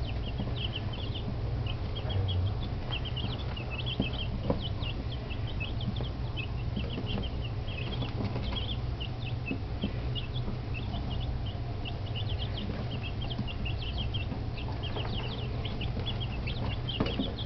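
A brood of week-old chicks peeping: many short, high chirps overlapping without a break, over a steady low hum.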